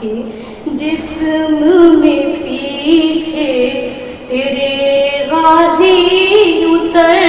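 A woman singing a noha, an Urdu mourning lament, solo in long held notes that glide between pitches, with short breaks for breath.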